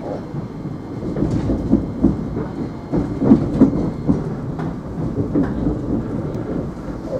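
Interior running noise of a Thameslink Class 700 electric train: a steady low rumble with irregular knocks and thuds from the wheels on the track, heaviest around the middle.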